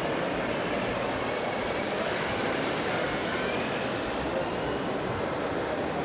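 Steady background hubbub of a busy exhibition hall: indistinct crowd chatter mixed with mechanical noise.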